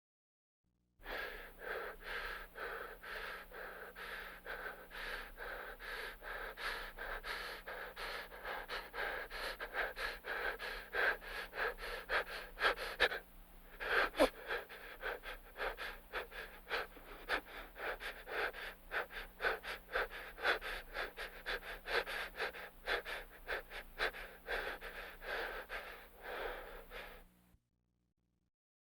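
A person breathing rapidly and unevenly, short noisy breaths about three or four a second, with a brief pause about halfway through.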